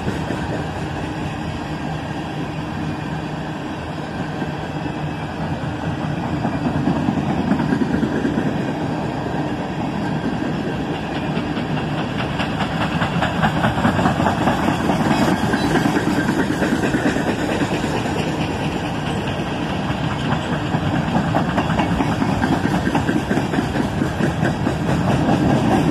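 Coal train of bottom-dump hopper cars rolling past at a steady pace, clanking and rattling.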